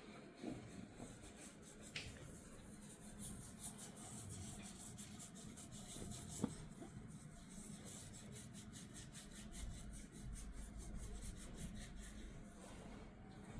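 Hands massaging the head: soft rubbing, then from about three seconds in a long run of quick, scratchy fingertip strokes. A single sharp click about halfway through.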